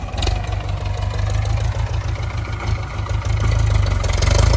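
Farm tractor's diesel engine running steadily as it pulls a tillage implement, with a deep, fast throb that grows louder near the end as the tractor comes closer.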